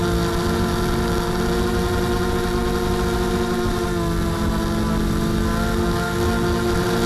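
Mini quadcopter drone's electric motors and propellers whining steadily, several close pitches together, the pitch dipping slightly about four seconds in.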